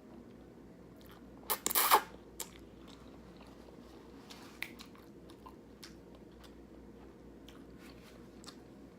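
Close-up eating sounds: a mouthful of creamy pasta with bacon bits being chewed, with a short loud burst of clicks and crackle about a second and a half in, then soft scattered mouth clicks.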